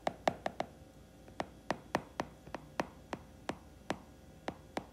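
Stylus tip tapping and clicking on a tablet screen while handwriting, an irregular series of short sharp clicks.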